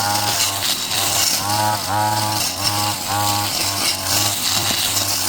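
A small petrol engine on a power tool, such as a chainsaw or brush cutter, running under a steady hum, its pitch rising and falling again and again as the load changes.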